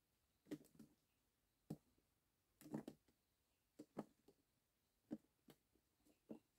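Faint, irregular knocks and clicks, about a dozen spread unevenly, the loudest cluster a little under three seconds in.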